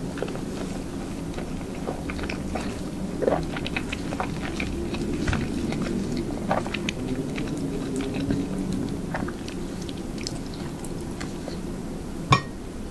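Close-miked chewing and soft wet mouth sounds of a person eating hamburger steak in demiglace gravy, with many small clicks. A single sharp tap near the end is the loudest sound.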